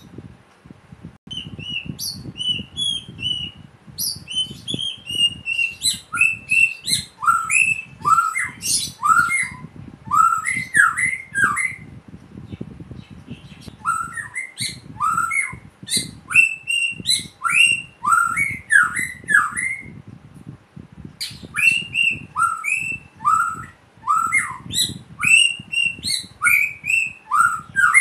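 White-rumped shama singing a loud, varied song of quick sliding whistled notes in bursts with short pauses between them, phrases that mimic a Chinese hwamei (samyong).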